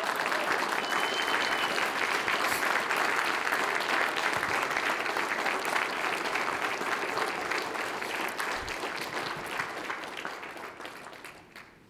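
Audience giving a standing ovation: many people clapping steadily, with the applause fading away near the end.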